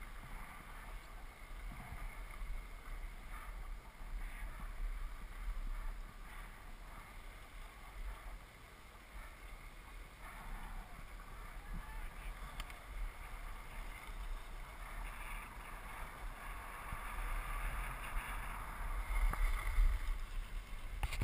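Scraping hiss of sliding over packed snow, with wind buffeting the camera microphone; it grows louder in the last few seconds.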